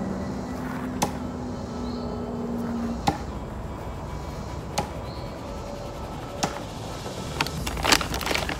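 Thrown objects hitting a target, four sharp thwacks about one and a half to two seconds apart. Near the end comes a short burst of crinkling from a paper bag being pulled open.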